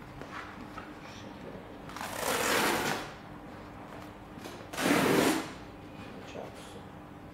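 A large sheet of heavy fabric from a Britpart winch kit being shaken open, giving two loud rustling swishes about a second long each, the second about two and a half seconds after the first.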